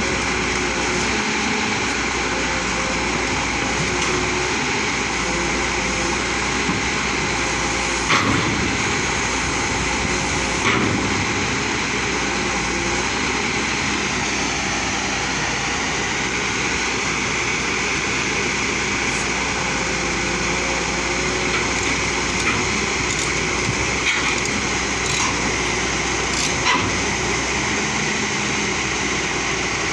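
JCB excavator's diesel engine running steadily with a high hydraulic whine over it, and a few short metallic knocks.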